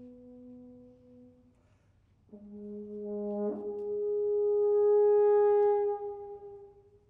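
Trio of French horns playing: held notes fade away, and after a short pause a new chord enters and swells, is released about six seconds in and rings briefly in the hall.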